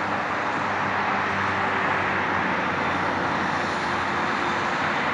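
Steady roar of dense highway traffic, tyres and engines blending into an even rushing noise, with a faint low hum under it.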